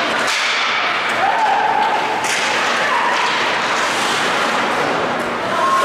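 Ice hockey play: skate blades scraping the ice and sticks clacking against the puck and each other, with several sharp clacks, one near the start and one about two seconds in. Drawn-out shouts from spectators or players rise over it a few times.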